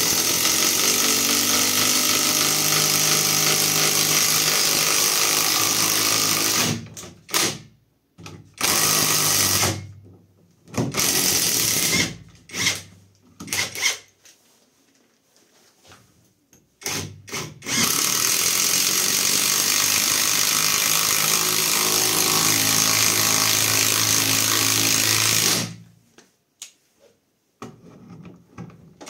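Catpower 4226 cordless impact wrench hammering a lag screw into a soft wood log. It runs in one long stretch of about seven seconds, then several short trigger bursts, a pause of a few seconds, and a second long run of about eight seconds, ending in a couple of short blips.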